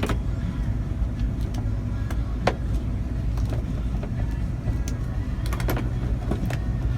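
A vehicle's engine running with a steady low hum, with a few scattered sharp clicks and knocks, the clearest about two and a half seconds in and several close together near the end.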